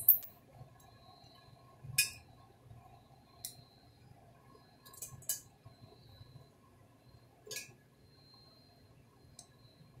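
Small metal screws and parts clinking as they are handled and set into an Espar diesel heater's aluminium housing during reassembly: a handful of sharp, light metallic clicks, irregularly spaced a second or two apart, the loudest at the start and about 2 s in.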